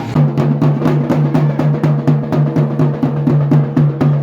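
Festival drums played in a fast, steady rhythm, several strokes a second, over a steady low drone.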